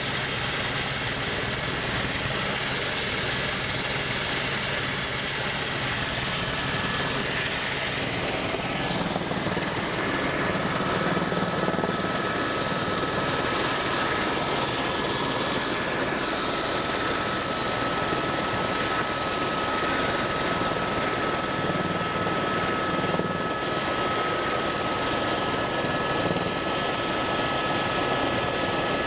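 Aircraft in flight: a steady, unbroken drone of engine and airflow noise, with a faint steady whine running through it.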